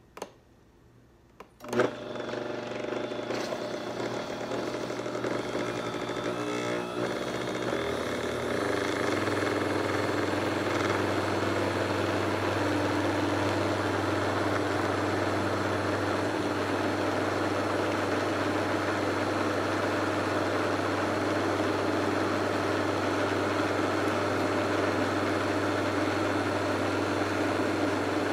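High-speed blender motor switched on with a click about two seconds in. It speeds up over the next several seconds, steps up in pitch around eight seconds, then runs steadily at high speed, emulsifying a liquid egg mixture into aioli.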